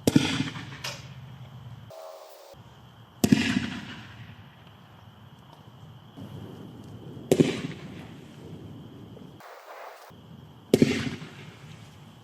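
Four 45mm smoke mines fired one after another, every three to four seconds. Each is a single sharp launch report from its mortar tube that dies away over a second or so.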